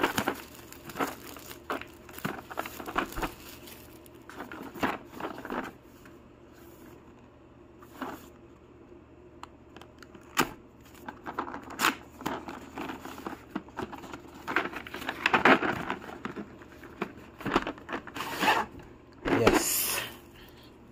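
Hands handling packaging: crinkling plastic shrink wrap and a cardboard box being opened, with a hard plastic socket-set case scraping as it slides out. The handling makes irregular rustles, crackles and clicks, with louder rustling bursts about two-thirds of the way through and again near the end.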